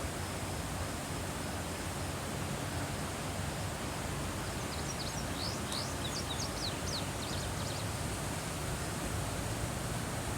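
Steady wind noise, with a bird giving a quick run of high chirps about halfway through.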